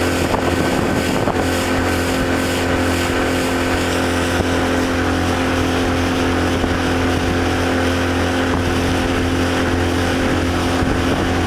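Small speedboat's engine running at a steady cruising speed, its pitch holding even, over a steady rush of wind and water.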